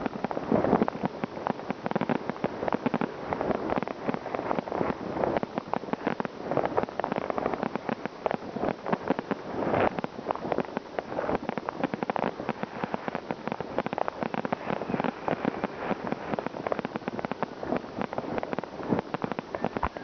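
Fireworks and firecrackers going off in a dense, continuous barrage of bangs and cracks, some louder than others.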